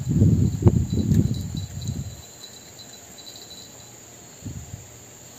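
Crickets chirring steadily at a high pitch. For the first two seconds a louder low rumble with a sharp knock covers them, then they are heard alone.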